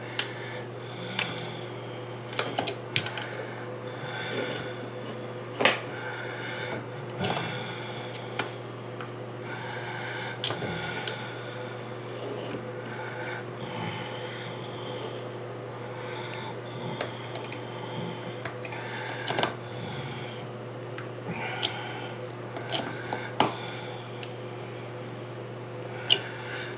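Scattered small metallic clicks and clinks of faucet parts being handled and fitted back together, a few sharper knocks among them, over a steady low hum.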